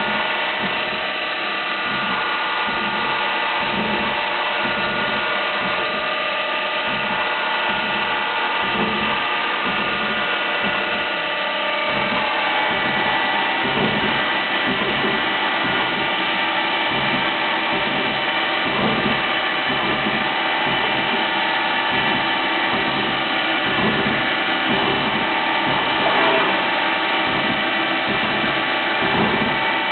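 Fadal CNC vertical mill cutting: the spindle and cutter running with a steady whine of several tones over cutting noise, and an uneven low pulsing beneath.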